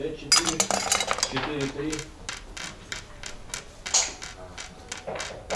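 Wooden backgammon checkers and dice clacking on the board: a quick flurry of clicks in the first two seconds, then scattered single clacks.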